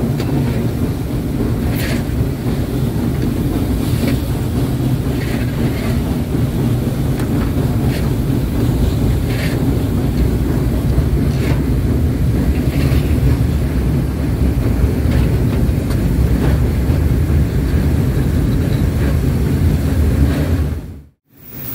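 Train running on the rails: a steady loud rumble with sharp wheel clicks over the rail joints every second or two. The sound cuts off suddenly near the end.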